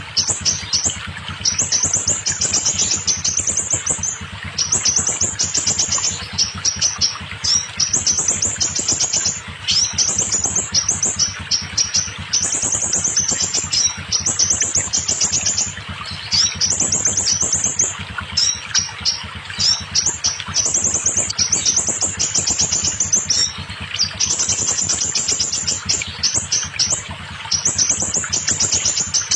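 Scarlet minivet song: bursts of rapid, high chirping notes, phrase after phrase with short pauses, over a steady low background hiss.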